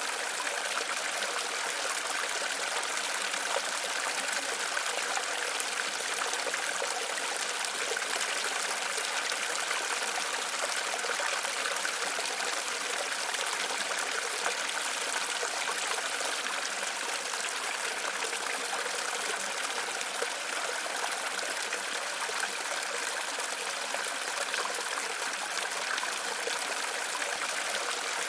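Waterfall water falling and splashing in a steady, even rush, bright and hissy with little deep rumble.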